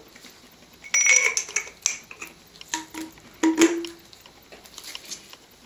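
Clinks and knocks of a metal airgun regulator being pushed into a greased air reservoir tube, metal against metal. There are several short knocks, and one about three and a half seconds in has a brief low ring.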